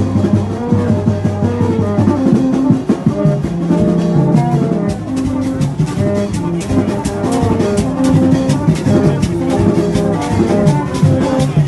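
Music with drums and a melody of held notes; sharp drum or percussion strikes come thick and fast from about halfway through.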